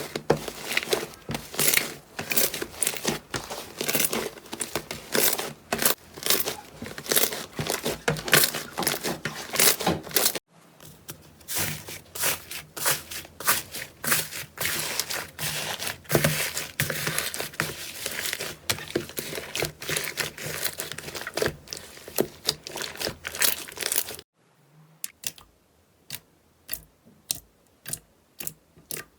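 Slime being pressed and squeezed by hand, giving off dense crackling and popping clicks. The sound cuts abruptly to a new take about ten seconds in, and again a little before the end, where it turns quieter with separate pops about twice a second.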